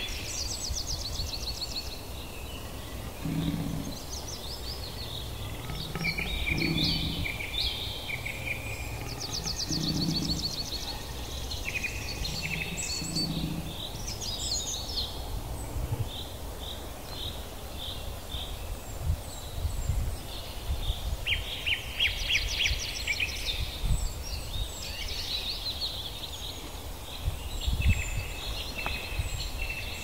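Woodland birdsong: several songbirds singing and calling with rapid trills, over a steady low rumble. A low call repeats four times, about three seconds apart, in the first half.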